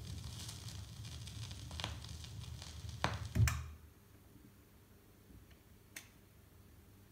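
Dual 1214 automatic turntable at the end of a record: low hum with a few ticks while the stylus is in the run-out groove, then a clunk about three seconds in as the auto-return lifts the tonearm. After that it goes quiet, apart from a single click about six seconds in as the arm comes back to its rest.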